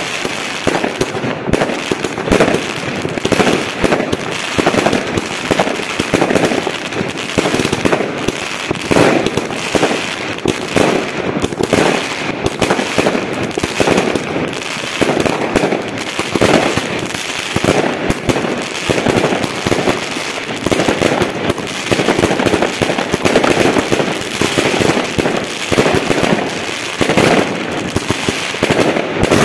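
Aerial fireworks going off in a dense, unbroken run of loud bangs, one burst hard on another.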